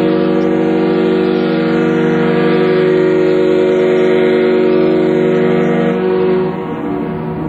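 Ship's steam whistle sounding one long blast, a chord of several steady tones over a hiss, which stops about six seconds in.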